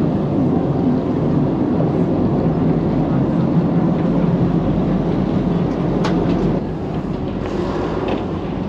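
Passenger ferry's engine running loud and steady with a low drone, easing off a little about two-thirds of the way through. A single sharp knock about six seconds in.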